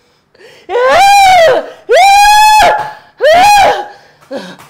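A woman screaming in three long, high-pitched cries, each about a second long and each rising and then falling in pitch.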